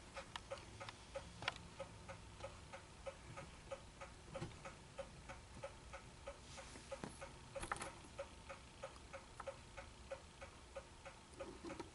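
Faint, even ticking about three times a second, with a few light metal clicks and knocks as a small steel piece is handled and set into a freshly cut slot in a steel block.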